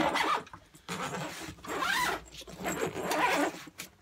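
Zipper on a cloth suitcase being pulled open around its edge in several long strokes.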